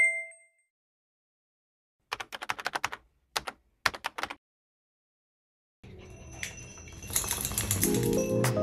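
Keyboard-typing sound effect: three short runs of quick key clicks, about two to four seconds in, as a caption is typed out. A chime rings out at the very start, and light music with bell-like mallet tones comes in at about six seconds.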